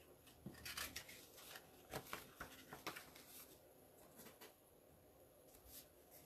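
Near silence broken by faint paper rustles and soft clicks, the sound of a picture book being handled and its page turned. The clicks thin out after about four seconds.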